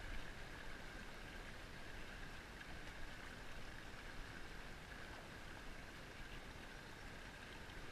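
Steady rush and lap of river current flowing around a small inflatable pontoon boat.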